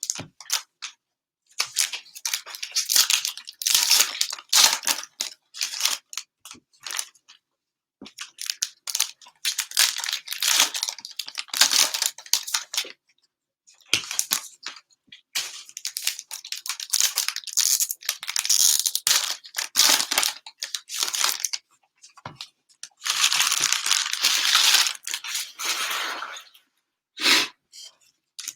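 Plastic cellophane wrappers of Panini Mosaic NFL cello packs being torn open and crinkled by hand, in repeated spells of a second or more with short pauses between.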